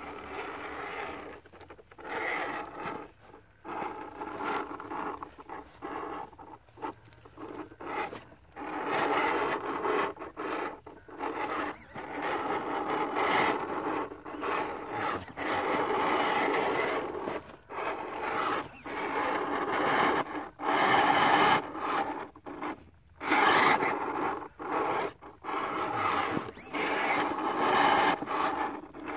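Electric drive motor and gears of an RC rock crawler whining in repeated on-and-off bursts as it is throttled while climbing rock.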